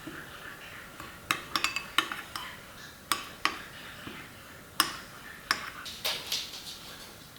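A kitchen utensil knocking and clinking against a bowl during stirring, in sharp taps at irregular intervals with a faint scraping between them.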